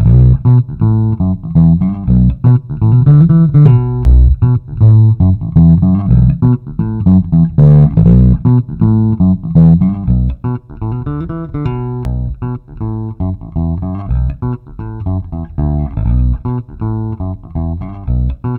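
Funk electric bass guitar loop at 120 bpm playing back, its tone shaped by an equalizer: full and loud with a strong low-mid boost at first, then quieter and thinner after about ten seconds as the low-mid band is turned down into a cut.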